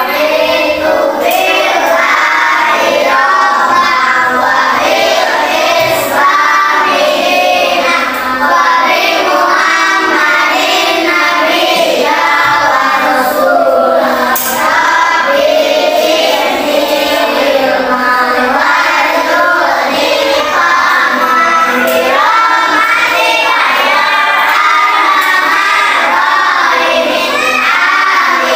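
A class of young children singing together in unison, many voices chanting as one without pause.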